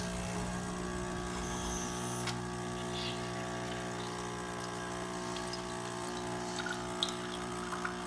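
Espresso machine's water pump running with a steady hum as it pushes hot water through the empty portafilter, priming the machine without coffee. It starts right at the beginning, with a few light ticks later on.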